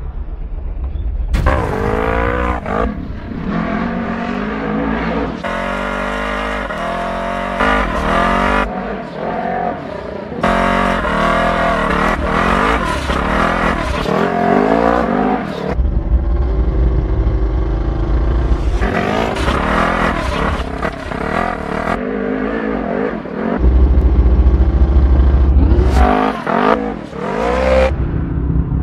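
Polaris RZR side-by-side UTV engine revving hard over and over, its pitch rising and falling as the throttle opens and closes. The sound changes suddenly several times, with stretches of heavy low rumble.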